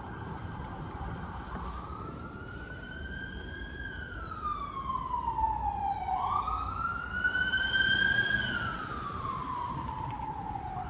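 Emergency vehicle siren on a slow wail, its pitch rising and falling twice, loudest about eight seconds in, over a steady low hum of street traffic.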